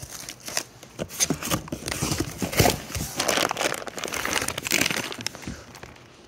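Packaging crinkling and rustling as a new brake caliper is unwrapped by hand, with irregular crackles that die away near the end.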